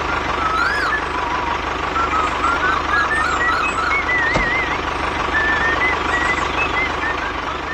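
Small electric motor of a toy RC vehicle whirring steadily, with many short warbling chirps above it.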